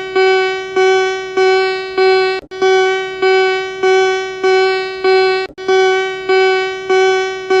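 Electronic emergency-alert tone: one buzzy pitched note pulsing over and over, about every 0.6 seconds, each pulse starting loud and fading.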